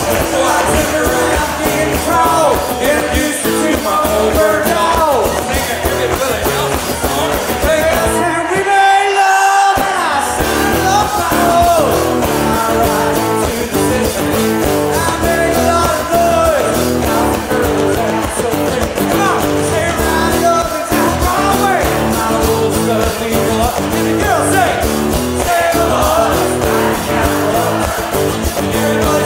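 Live country-rock band playing, with strummed acoustic guitars, drums and a man singing lead with other voices joining in. About eight seconds in the band drops out for a moment under a held sung note, then comes back in.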